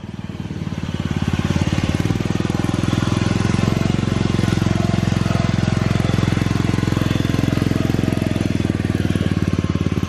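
Small engine of a modified off-road lawn tractor running close by, picking up over the first second or so and then holding a steady, fast, even beat as it crawls up a rocky trail.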